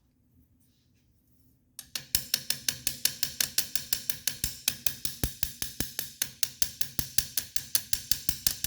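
Rapid, steady metal-on-metal tapping, about six strikes a second, starting about two seconds in. It is a hammer knocking the old ground-off rivet bodies out of a 1966 Chevy II Nova vent window frame.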